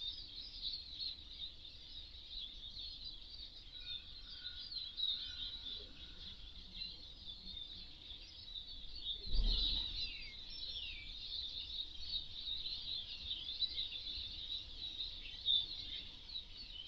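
Small finches (Eurasian siskins and common redpolls) twittering continuously in rapid, high-pitched chirps. A brief dull thump sounds about halfway through.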